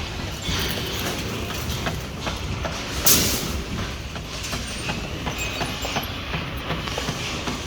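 Construction-site noise of steel rebar being handled and tied: scattered metallic clinks and knocks over a steady low rumble, with one louder clank about three seconds in.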